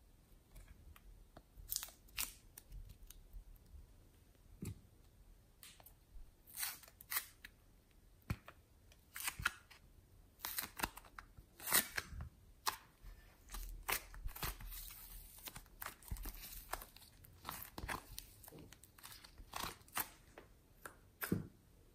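Soft modelling clay being pressed and peeled out of a butterfly-shaped plastic tray: scattered, irregular small clicks and crackles of the clay and the thin plastic under the fingers.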